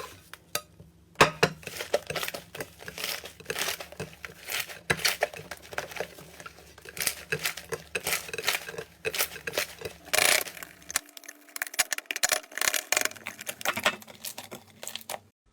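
Slime being squeezed and pressed, with dense, irregular crackling and popping clicks. There is a brief lull about a second in, and the sound cuts off suddenly near the end.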